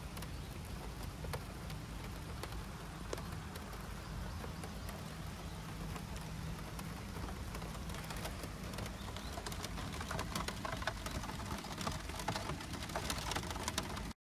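Rain pattering on the clear plastic canopy and windscreen of a Honda Gyro Canopy scooter: a steady hiss with many sharp drop ticks, which come thicker over the last few seconds, over a steady low rumble.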